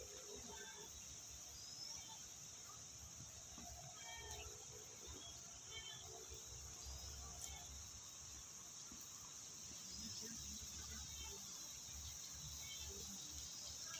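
Faint outdoor ambience: a steady high-pitched insect trill, with a short rising chirp every few seconds and scattered faint bird calls over a low rumble.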